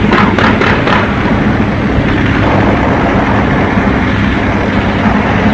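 Loud, steady rumble of heavy tank engines, with a quick run of about four sharp cracks in the first second.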